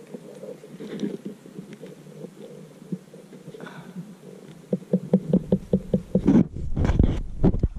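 Pen scratching on paper laid over a wooden board. It is soft and uneven at first, then from about five seconds in turns into quick back-and-forth scribbling strokes, about five a second, as if shading or colouring in.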